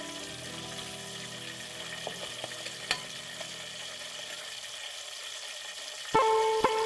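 Vegetables sizzling as they fry in a steel wok over a wood fire, with a metal spoon stirring and one sharp clink about three seconds in. About six seconds in, music starts, much louder.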